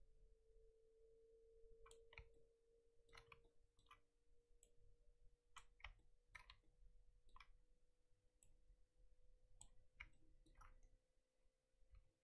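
Faint, irregular computer mouse and keyboard clicks, about a dozen, starting about two seconds in, over a faint steady hum.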